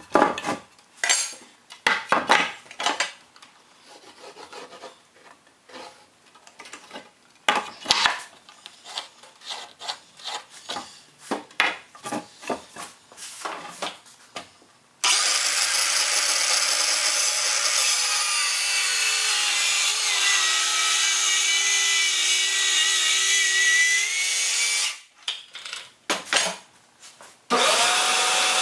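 Short scrapes and taps of a steel square and pencil on a pressure-treated wooden post, then a circular saw runs for about ten seconds, cutting into the post, and stops abruptly. A shop vacuum's motor starts near the end.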